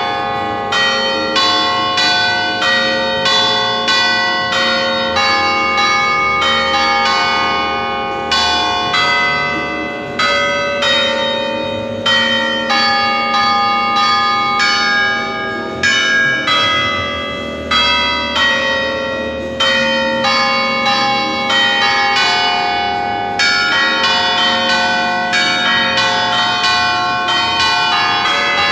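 Cathedral bells chiming a tune: strikes of different pitches follow each other about every half second to second, each note ringing on under the next.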